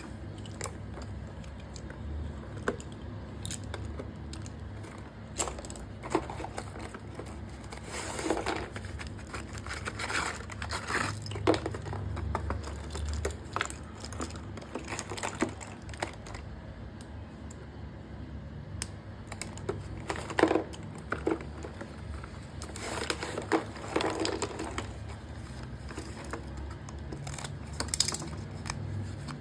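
Parcel packaging being handled close to the microphone: irregular crinkling and rustling with scattered sharp clicks of small hard items, over a steady low hum.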